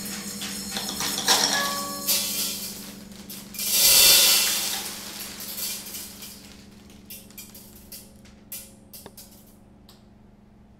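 Dry seeds poured from a small metal bowl, rattling and pattering into a hand and onto the table while the bowl rings. The pour is loudest about four seconds in, then thins to a few scattered ticks and stops near the end.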